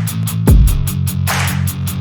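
Background music with a steady beat: fast hi-hat ticks over stepped bass notes, with a deep, falling bass hit about half a second in.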